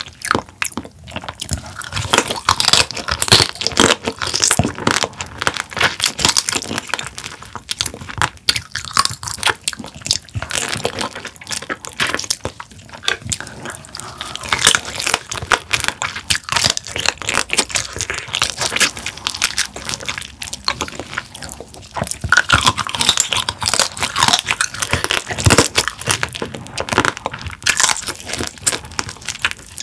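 Close-miked biting and chewing of spicy marinated raw crab (yangnyeom gejang), the shell crunching and cracking in dense, quick crackles.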